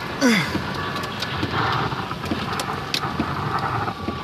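Heavy rain from a severe thunderstorm pelting a vehicle, a dense steady hiss with scattered sharp taps of drops. A short falling tone sounds near the start.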